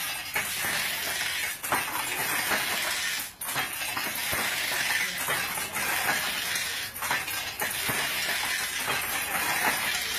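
Handloom being worked: a steady mechanical clatter, with sharp knocks every second or two as the beater strikes the cloth and the shuttle is thrown.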